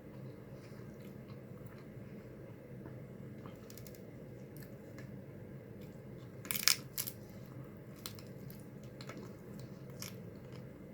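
Close-up mouth sounds of someone chewing a taco, with soft scattered clicks and one louder cluster of sharp crackles about six and a half seconds in, over a steady low hum.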